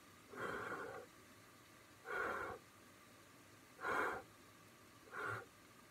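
A person blowing on a spoonful of hot, steaming pasta to cool it before tasting, four short breathy puffs a second or so apart.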